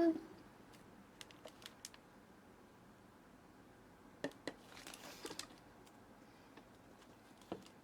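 Faint handling noise of a blind-box figure and its packaging: scattered small plastic clicks and a brief rustle about five seconds in.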